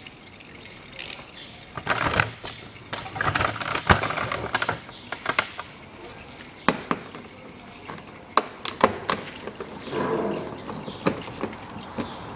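Sporadic sharp clicks and scraping as a screwdriver bit works the Torx screws of a plastic wheel-arch liner and splash shield.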